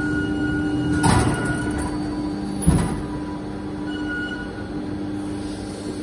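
JY-850C vertical injection molding machine running with a steady mechanical hum. About a second in there is a short rushing hiss, and a single sharp clunk follows a moment later.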